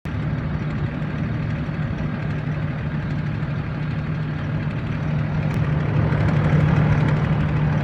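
Land Rover Discovery 4 running at idle with a steady low hum, growing slightly louder toward the end: the noise the owner calls annoying.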